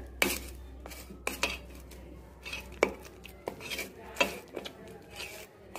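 A spoon stirring a thick paste of ground urad dal and spices in a stainless steel bowl, with irregular clinks and scrapes against the bowl.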